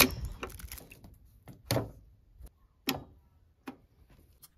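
Brass air-hose fitting being pushed into a plasma cutter's air inlet, snapping in with a sharp metallic click, then several separate clicks and knocks as it is handled.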